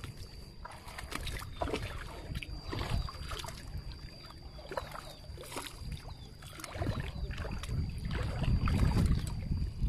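Water splashing and sloshing as a hooked fish is drawn through fast river water against a concrete weir, a run of short sharp splashes with a faint steady high tone. From about seven seconds in, a louder low rushing of water takes over.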